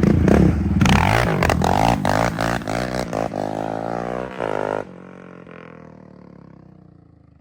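Yamaha Raptor 700 ATV's single-cylinder engine revving hard through a loud aftermarket exhaust, with crackling pops and the pitch rising and falling as it rides. About five seconds in the sound drops off suddenly and the engine tone fades away with falling pitch.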